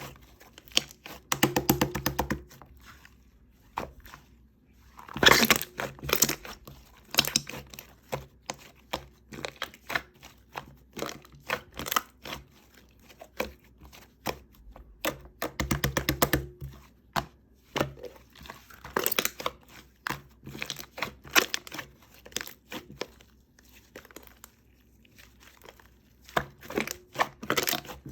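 Slime being squeezed, poked and stretched by hand, making crackling clicks and pops, with dense runs of crackle about two seconds in, around five seconds, and around fifteen seconds.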